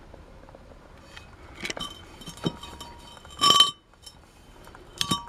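Removed dry cylinder liner from a MAN D2866 diesel engine clinking against metal as it is handled and set down, with a short ring after the knocks. There are four clinks, the loudest about three and a half seconds in.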